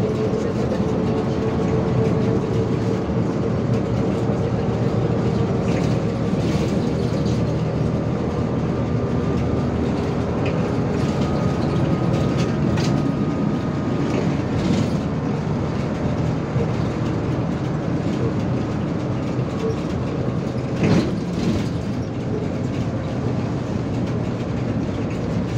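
Inside a moving trolleybus: a steady low rumble of the running vehicle with a faint electric-motor whine and rattling of the body. A single sharp knock sounds about 21 seconds in.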